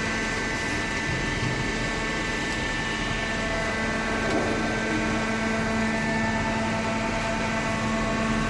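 Baler machine running: a steady machine hum with a constant whine over it.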